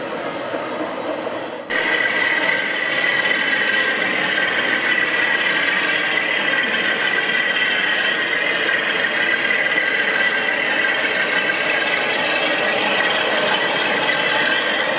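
O gauge model trains running on the layout's track: a steady mechanical running and rattling noise, which changes suddenly about two seconds in and then holds steady.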